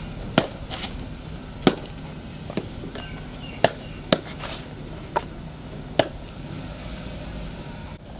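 About eight sharp knocks or clicks at uneven intervals over a steady background noise.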